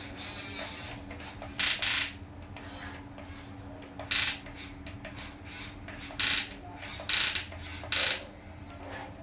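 Small electric RC excavator working its bucket in sand: five short, loud gritty scrapes as the bucket digs, over a steady low hum from its motors.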